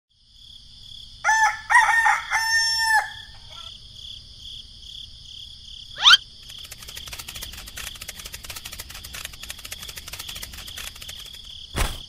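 A rooster crows once over a steady high chirring of insects. About six seconds in there is a short rising sweep, then rapid faint clicking, and a sharp knock near the end.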